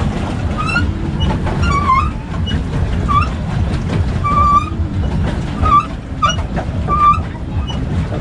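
A pedal boat being pedalled: a steady low rumble with short squeaks that recur about once a second.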